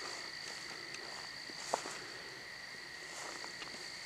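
Night chorus of crickets, a steady high-pitched trill, with one short click about two seconds in.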